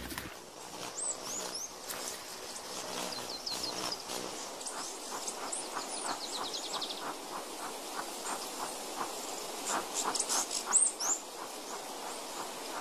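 Natural ambience of birds and insects: short, high chirps come and go, with two rapid high trills a few seconds in. Underneath are scattered faint ticks and an even insect hiss.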